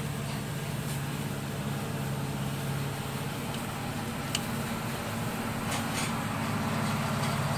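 A steady low machine hum, with a few faint clicks about halfway through and again near the end.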